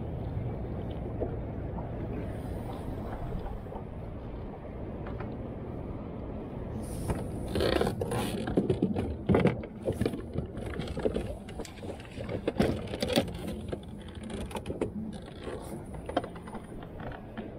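Irregular clicks and knocks of gear being handled in a small boat, loudest and densest near the middle, over a steady low rumble of wind and water.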